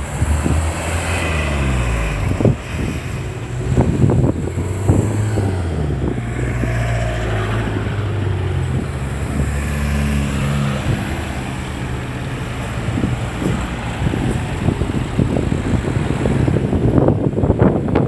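Road traffic passing: vehicle engines pulling away and going by, their pitch rising and falling several times.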